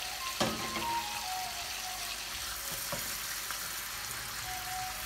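Bacon slices frying in olive oil in a wok, a steady sizzling hiss, with a couple of light knocks, about half a second in and about three seconds in.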